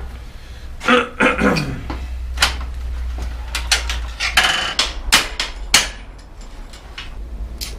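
Metal knocks and clanks of tools and parts as an old bicycle's bottom bracket is taken apart in a repair stand: about a dozen separate strikes, some ringing briefly, with a short scraping rustle in the middle, over a steady low hum.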